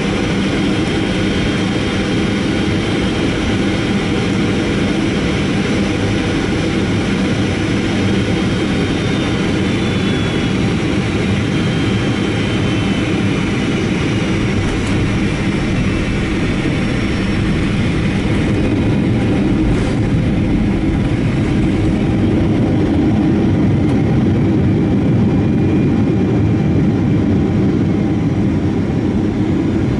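Boeing 757-200 jet engine and airflow roar heard inside the cabin over the wing as the airliner lands, steady throughout, with a faint high whine falling slowly in pitch in the middle. The roar grows a little louder about two-thirds of the way through.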